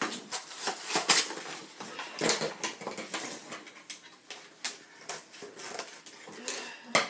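Cardboard packaging being handled, torn and cut open with scissors: irregular rustling, scraping and snipping, with a sharper snap near the end.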